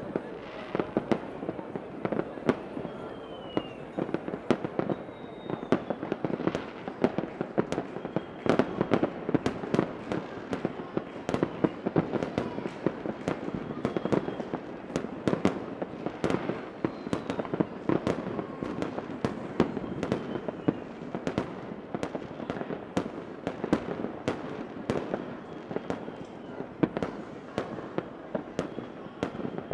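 Fireworks going off continuously: dense crackling and sharp bangs several times a second over a steady rumble, with faint whistles now and then.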